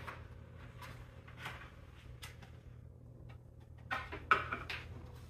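Light clicks and taps of small parts and a hand tool being handled on a wooden table, with a louder clatter about four seconds in, over a low steady hum.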